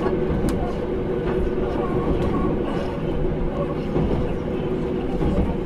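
Cabin running noise of a JR Hokkaido 789 series 1000 subseries electric train: a steady rumble of wheels on rail, with a constant hum from the traction equipment.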